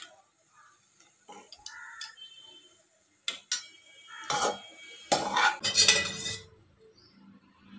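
Metal kitchen pots and utensils clanking and scraping in separate knocks, with a louder run of clattering a little past halfway.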